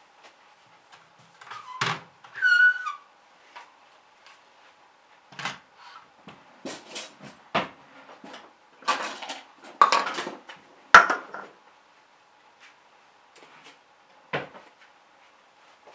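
Kitchen handling sounds: a string of knocks and clatters as containers and a bowl are handled and set down on a countertop, with a short squeak about two and a half seconds in. A faint steady hum runs underneath.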